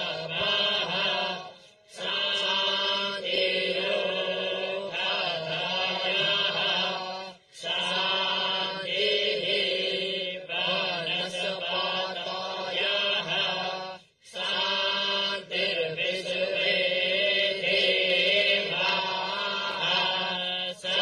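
Sanskrit Vedic mantra chanting: long, steady, intoned lines with a held low pitch, broken three times by brief pauses for breath.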